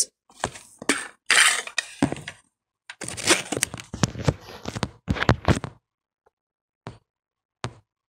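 Handling noise: a rapid run of crackles, rustles and knocks as the boxed USB Wi-Fi adapter and its packaging are handled and moved about on a wooden desk, ending in a couple of single clicks.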